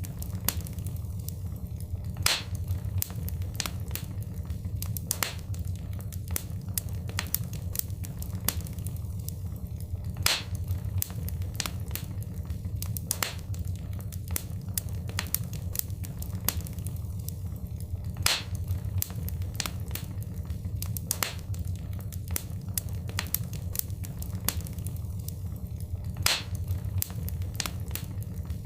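Wood fire crackling in a fireplace: a steady low rumble under frequent sharp pops and snaps. A louder pop comes about every eight seconds, as the same stretch of crackling repeats.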